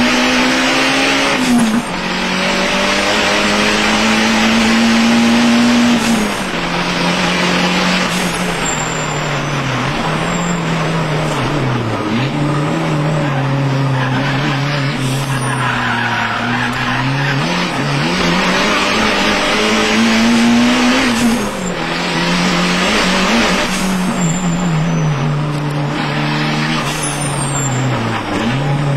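In-car sound of a 1994 Mitsubishi Eclipse GST race car's turbocharged 2.0-litre four-cylinder (4G63T) under hard driving. The engine note climbs steadily, then drops at gear changes or when the driver lifts for corners, and climbs again about half a dozen times, over steady wind and road noise.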